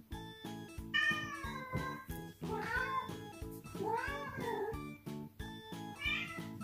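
Two house cats meowing in turn over background music. A white-and-black cat gives one long meow about a second in. A brown tabby follows with two wavering, warbling meows, its vibrato 'kobushi' call. The white-and-black cat ends with a short meow near the end.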